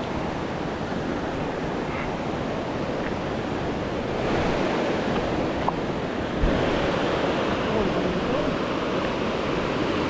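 Steady rushing of river water pouring over rocky cascades, a little louder from about four seconds in.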